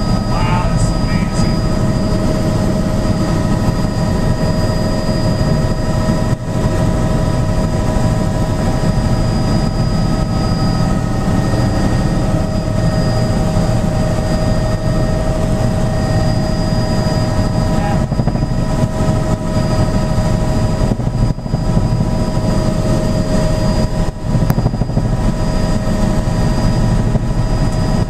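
Tour helicopter's engine and rotor heard from inside the cabin: a loud, steady rumble with a steady whine over it.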